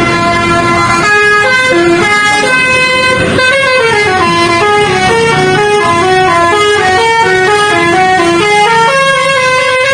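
Bus telolet horn, a Basuri multi-tone horn, playing a quick tune of stepping notes without a break, with a longer held note near the end.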